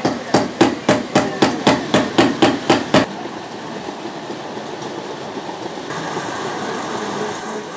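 A rapid run of about a dozen sharp knocks, roughly four a second, like repeated hammer blows, stopping about three seconds in. A steady low background hum of the hall follows.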